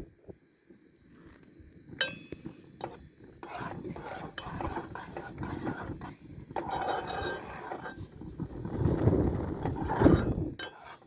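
Metal cookware and utensils being handled: a sharp ringing clink about two seconds in, then irregular scraping and knocking.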